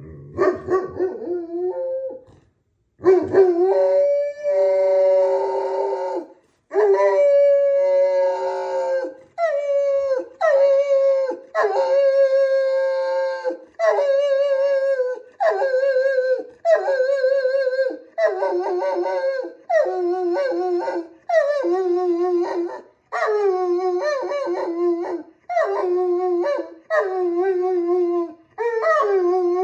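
Great Pyrenees dog howling on request, his 'singing': a long run of about eighteen howls with a wavering pitch. The first few are drawn out over two to three seconds each; later ones are shorter and come about one a second.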